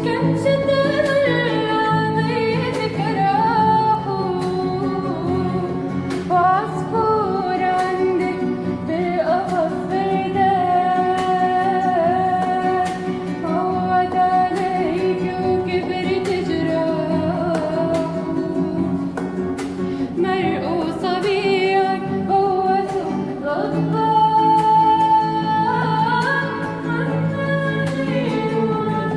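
A woman singing a melody with long held, ornamented notes, accompanied by plucked strings such as guitar.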